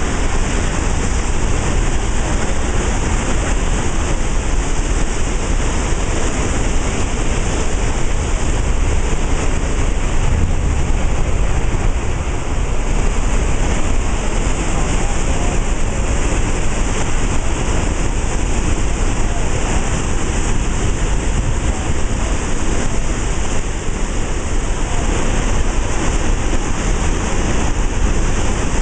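Floodwater rushing out of the open spillway gates of Gavins Point Dam on the Missouri River: a loud, steady roar of churning water.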